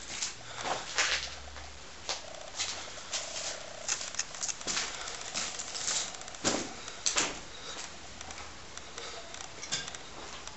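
Footsteps crunching over broken glass and rubble on a floor, in irregular crunches about one or two a second that thin out near the end.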